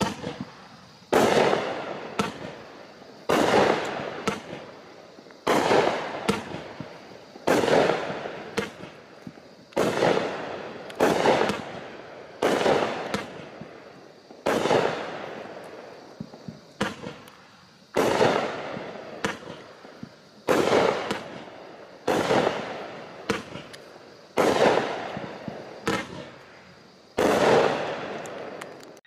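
A 16-shot 200-gram consumer fireworks cake ('Peace Out') firing its shots one after another, about every two seconds. Each shot is a sharp bang that fades out over a second or so, with smaller pops in the tail.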